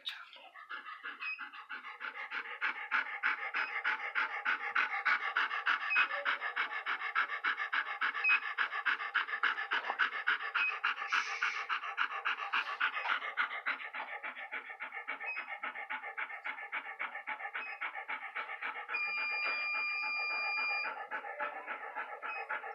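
Large dog in a basket muzzle panting fast and evenly, building up over the first few seconds. A steady high tone sounds for about two seconds near the end.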